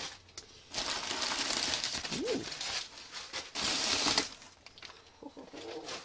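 Crumpled newspaper packing being pulled out of a cardboard box, rustling and crinkling in two long spells, the second one louder. A brief hum of a voice comes about two seconds in.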